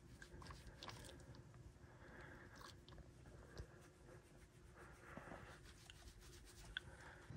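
Near silence in a small room, broken by faint scattered clicks and soft rustles.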